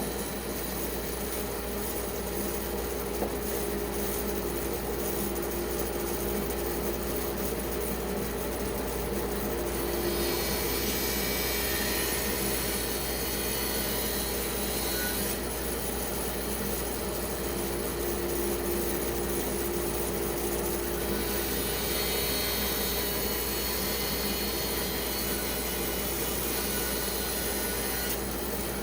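Band saw running and cutting through a wet spalted pecan log: a steady motor hum under a sawing hiss that grows brighter twice, for several seconds each time.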